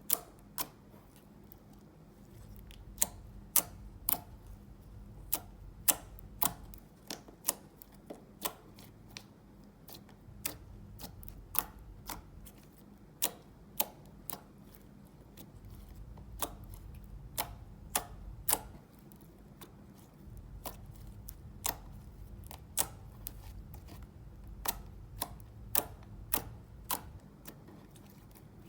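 Slime being kneaded and squeezed by hand, giving irregular sharp clicks and pops of trapped air, about one or two a second.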